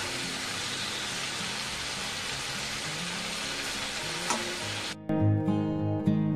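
Chicken, tomatoes and onions sizzling steadily in oil in an iron kadai, with a light click about four seconds in. About five seconds in it cuts abruptly to acoustic guitar music.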